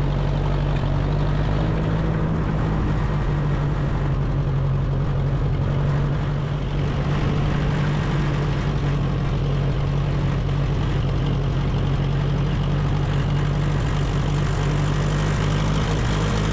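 Small vintage Ferguson tractor's engine running steadily while out ploughing.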